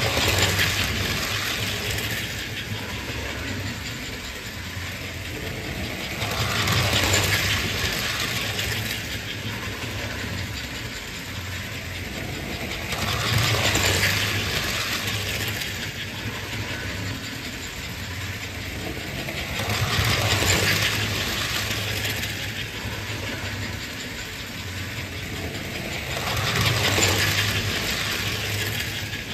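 American Flyer S-gauge toy trains running around their track: a metallic rolling clatter over a steady low hum, swelling each time a train passes close by, about every six and a half seconds.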